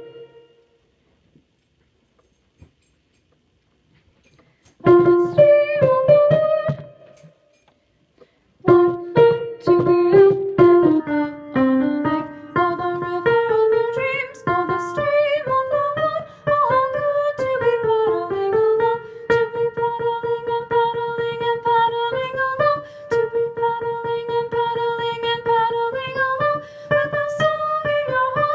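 Near silence for about five seconds, then a brief passage of piano chords, a short gap, and from about nine seconds in a piano playing a madrigal's soprano 1 part over chords, with notes moving and held.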